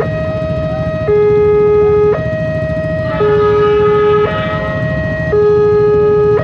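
Electronic warning alarm of a Wantech railway level crossing, sounding two alternating tones, a higher then a lower one, switching about once a second: the crossing is closed for an approaching train. A fainter, higher pitched sound joins in briefly midway.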